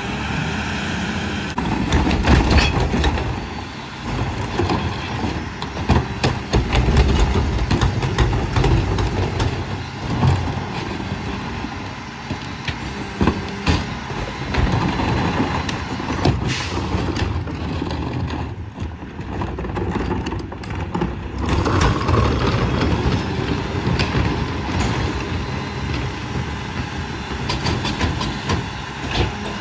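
Mack MRU garbage truck's engine running under load to drive the McNeilus rear loader's hydraulics, as a cart is tipped and the packer cycles, rising and falling, with sharp bangs and knocks of bins and trash now and then.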